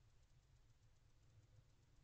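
Near silence: faint low rumble of the nest-box microphone with a faint, rapid high ticking, about seven or eight ticks a second.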